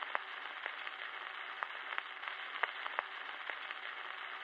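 Steady static hiss with scattered crackles and pops, about two or three a second, thin and muffled like an old radio or worn record.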